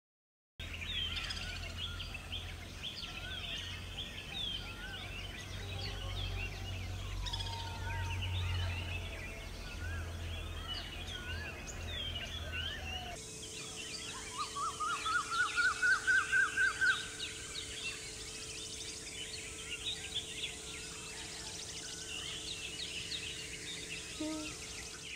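A chorus of wild birds chirping, with a series of about a dozen loud clear notes stepping up in pitch and then levelling off near the middle.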